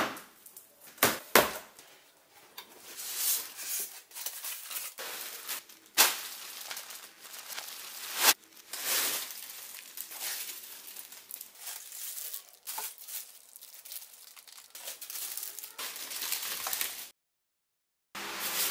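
Unpacking sounds: plastic wrap crinkling and cardboard box rustling as speakers are lifted out, with a few sharp knocks and clacks of the speaker cabinets being handled and set down. The sound cuts out briefly near the end.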